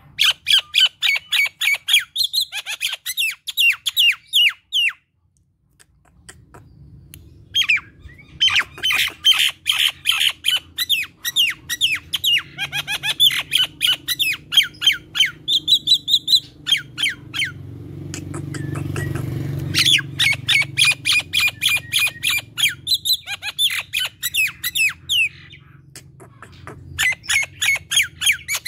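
Common myna calling in long runs of rapid, harsh, repeated notes, about four or five a second, broken by short pauses. A brief rushing noise swells under the calls about two-thirds of the way in.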